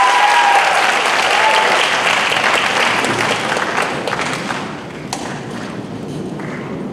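Theatre audience applauding, fading away over the first four or five seconds, with a few higher calls over the clapping near the start. A single thump comes about five seconds in.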